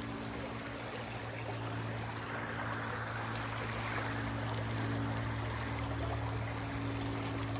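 Stream water running over a shallow rocky riffle, a steady rushing noise. A steady low drone of held tones sounds underneath it.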